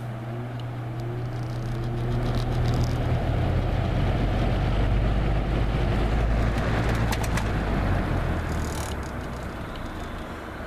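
1999 Lasko 3733 20-inch box fan starting up on its low setting: the motor hum comes on and the blade whir rises as it spins up over the first few seconds, then runs steadily. About eight seconds in, after a few clicks, the motor hum stops and the fan spins down, the whir fading.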